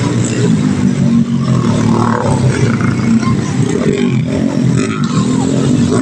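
Several dirt bike engines running and revving at once, a dense, overlapping engine drone.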